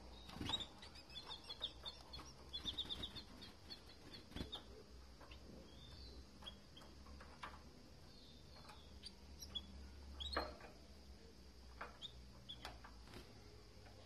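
Canaries in a cage: a quick run of short, high chirps over the first few seconds, then scattered single chirps. Several sharp taps and wing flutters come from birds hopping and flapping between the perches, the loudest taps about half a second in and about ten seconds in.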